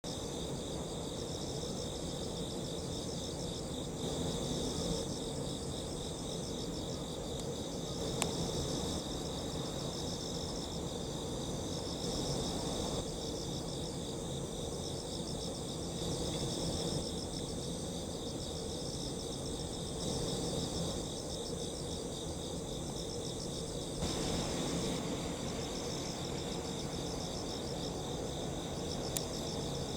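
Crickets and other insects trilling steadily, with a rapid pulsing chirr, over a low steady rumble. There is a single sharp click about eight seconds in and another near the end.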